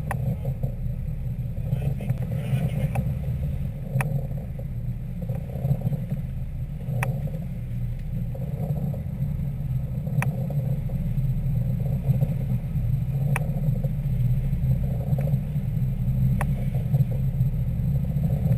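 Steady low rumble of a sport-fishing boat's engine running under way, with a sharp click about every three seconds.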